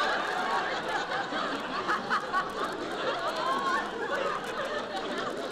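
Studio audience laughing, many people laughing and chuckling together at once.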